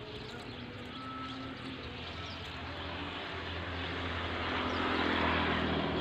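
An engine drone, steady in pitch, swelling to its loudest about five seconds in and easing off near the end.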